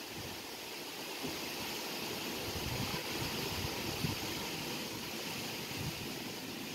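Storm gusts rushing through the trees in a steady hiss, with wind buffeting the microphone in irregular low thumps.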